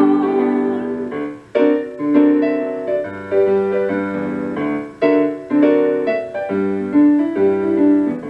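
Piano playing the closing chords of a swing-era song, one chord after another. A held sung note trails off in the first moment.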